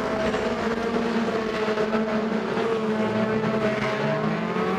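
Engines of several BriSCA stock cars running at racing speed in a steady, loud blare of overlapping notes, one engine note climbing in pitch about three seconds in as it accelerates.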